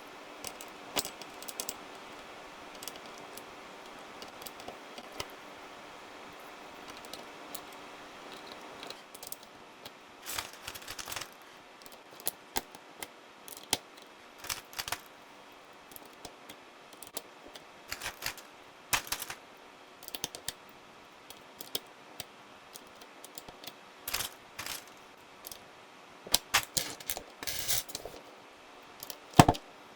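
Royal Kludge RK100 mechanical keyboard with brown tactile switches and plastic keycaps clacking: irregular clusters of sharp clicks with pauses between, over a faint steady hiss that drops away about nine seconds in.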